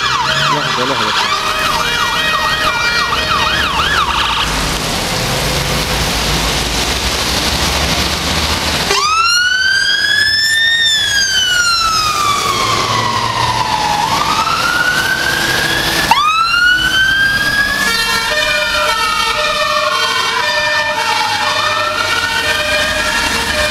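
Fire engine sirens: a fast warbling siren, then a few seconds of heavy engine and traffic rumble. About nine seconds in, a loud wail cuts in and rises and falls slowly, cutting out and starting again about seven seconds later, with a second, choppier siren tone beneath it near the end.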